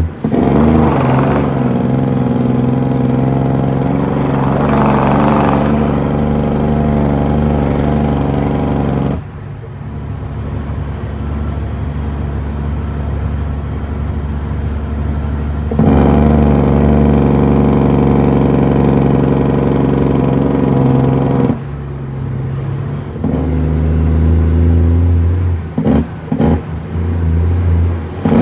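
Western Star heavy truck's diesel engine running under load. It eases off about 9 seconds in, pulls hard again from about 16 seconds, then eases off again, with a few brief dips near the end.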